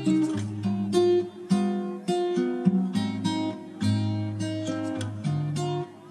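Background music: an acoustic guitar playing a run of plucked notes and strummed chords, a new note or chord about every half second.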